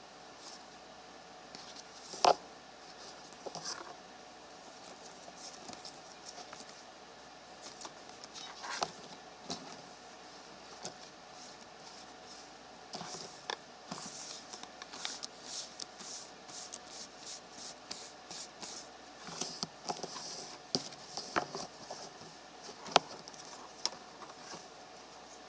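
Pokemon trading cards being handled and sorted: soft sliding, scraping and rustling of cards, with a sharp tap about two seconds in and another near the end.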